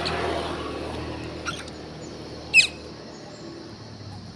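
Monkeys giving two short, high-pitched squeaks about a second apart; the second is louder.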